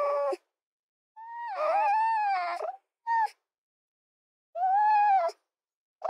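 Fox calls: high, whining cries, each under a second except a longer wavering one about a second in, with dead silence between them.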